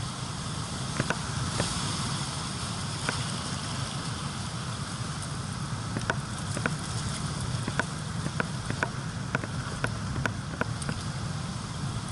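Steady rush of surf washing over beach rocks, with wind on the microphone, and a scatter of short, sharp ticks about once a second.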